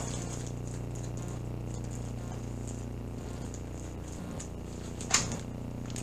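Faint handling noise from hands moving over and around the camera, over a steady low hum. A single sharp knock about five seconds in.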